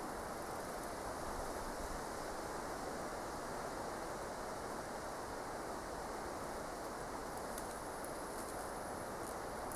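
Steady outdoor background hiss with no distinct events, and a few faint ticks near the end.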